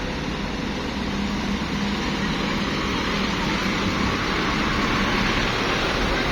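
Steady engine and traffic noise from road vehicles, with a faint low engine hum, growing slightly louder about four seconds in.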